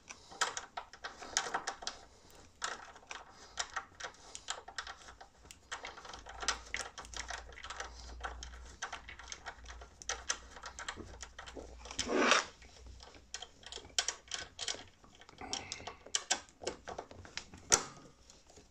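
Irregular metallic clicking of a socket ratchet and bolts as the caliper mounting bolts of a Brembo front brake caliper are run in, with a louder knock about twelve seconds in and another near the end.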